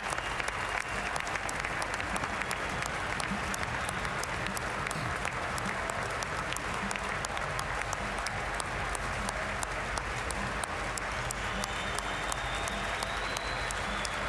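Large arena crowd giving a standing ovation: dense, steady applause with many hands clapping.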